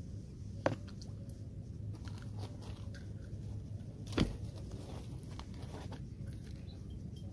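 Handling noises while a caught fish held in a towel is unhooked: faint rustling and small clicks, with two sharper clicks about a second in and about four seconds in, over a steady low rumble.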